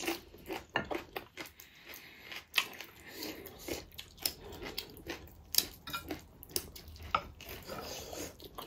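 Close-miked eating sounds: chewing, lip smacks and fingers working rice on plates, making a dense run of small, irregular clicks and squishes as pork feet and rice are eaten by hand.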